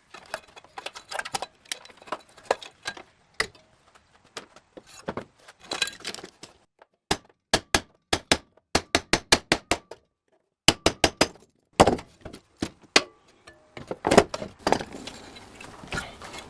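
Hand tools and metal parts clicking, knocking and clinking as a power converter is pried and pulled apart, including a quick run of sharp taps a little past the middle.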